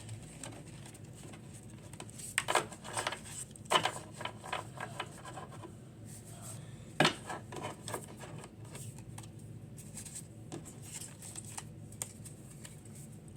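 A stack of Pokémon trading cards being straightened: the cards rustle and slide against each other, with a run of sharp taps as the stack is knocked square between about two and five seconds in, and one louder knock about seven seconds in.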